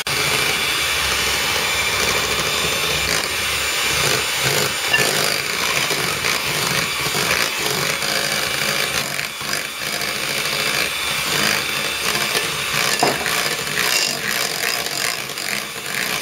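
Electric hand mixer running steadily at one speed, its twin beaters whisking a creamed butter, sugar and egg batter while oil is added.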